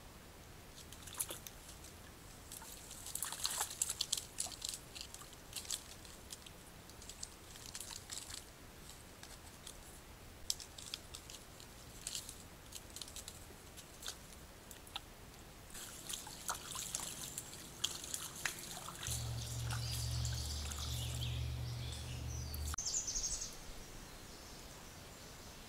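Shallow creek water trickling, with scattered splashes and sharp clicks as a raccoon wades and climbs a leaning branch. A low steady hum comes in for about four seconds near the end.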